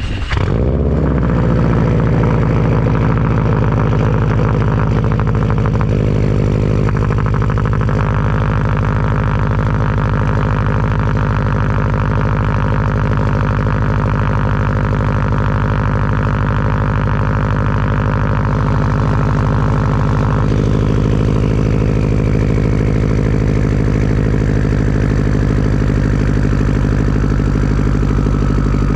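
Turbocharged Subaru flat-four with a Tomei turbo-back exhaust, starting at the very beginning and settling into a steady idle. The idle note shifts slightly a few times, and about two-thirds of the way in a thin whistle begins and slowly falls in pitch.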